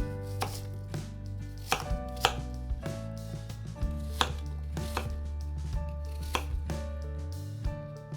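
Knife cutting apple on a cutting board, sharp knocks at an irregular pace of about two a second, over background music.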